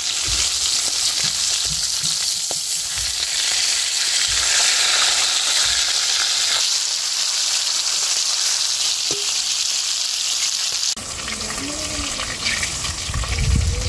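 Pieces of pangas fish sizzling in hot mustard oil in a kadai, with a metal spatula knocking and scraping now and then as the pieces are turned. About eleven seconds in, the sizzle suddenly drops and a low rumble comes up.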